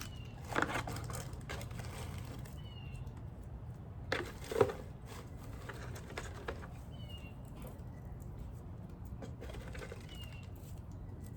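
Candy and packaging being handled: a few rustles and knocks, the loudest about four and a half seconds in. Short high chirps come every few seconds in the background.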